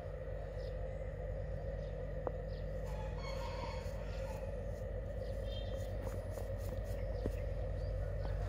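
A rooster crowing once, faintly, about three seconds in, over a steady background hum. A few light ticks and scrapes come from steel trowels working wet cement.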